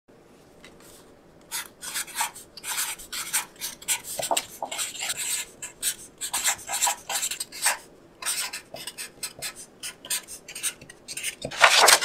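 Felt-tip marker writing on a paper card: a quick run of short, scratchy strokes, with pauses between words. Near the end a louder rustle of the card being handled.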